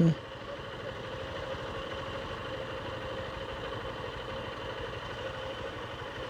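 Motorcycle engine running steadily at a low, even level.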